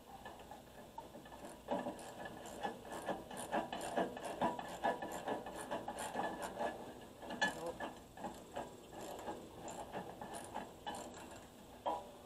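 Hand ratchet wrench clicking in quick runs of short strokes as a bolt on the flail mower is tightened by hand.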